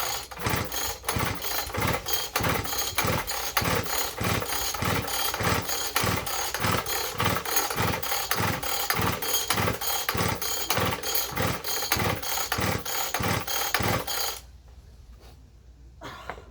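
Petrol disc cutter's two-stroke engine running with a regular pulsing beat about twice a second, then stopping suddenly near the end. It runs without power, by the owner's judgement.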